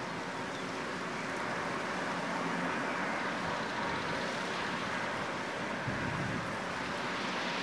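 Jetfoil "Seven Island Niji" moving off the quay on its gas-turbine-driven waterjets: a steady rushing noise of the turbines and the jetted water.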